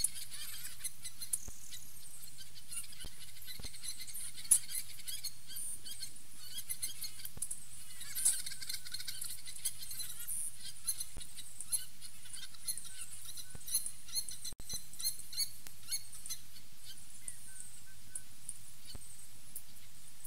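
Songbirds calling and singing: a scatter of short, high chirps and trills over a steady background hiss, with a brief gap in the sound about two-thirds of the way through.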